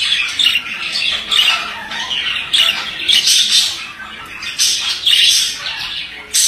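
Male budgerigar warbling and chattering without pause, broken by louder harsh squawks about once a second.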